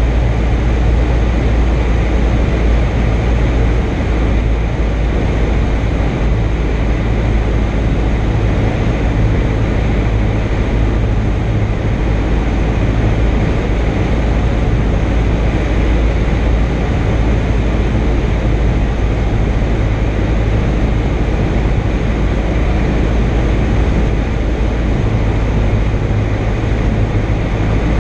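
Robin DR400-180's four-cylinder Lycoming piston engine and propeller running steadily, a loud, even drone heard inside the cabin.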